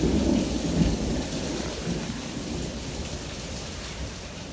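Heavy thunderstorm rain pouring down, with a low rumble in about the first second; the downpour eases and grows steadily quieter.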